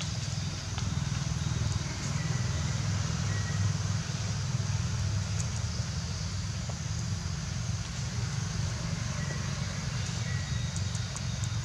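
Steady low rumble with an even hiss of outdoor background noise, with a few faint short high chirps.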